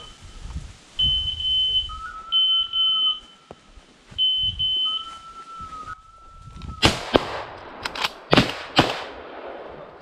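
A dog's beeper collar sounding repeated steady electronic beeps, each lasting about a second, every one to two seconds; they stop about six seconds in. Then about five sharp cracks come in quick succession with rustling between them, the loudest sounds here.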